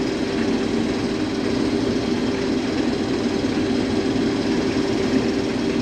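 Case IH 2188 combine running steadily while cutting wheat: an even, unbroken machine drone.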